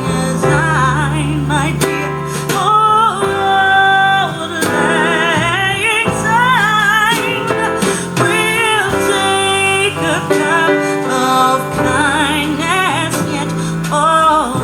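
A song with a singing voice over guitar, played back through Audio Phonar AP-16 two-way bookshelf speakers driven by a tube amplifier.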